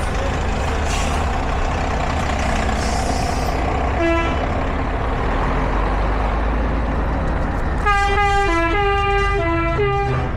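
Vintage diesel truck tractor units driving slowly by with their engines running. A short horn toot sounds about four seconds in, then from about eight seconds a multi-note musical horn plays a short tune, stepping between notes for about two seconds.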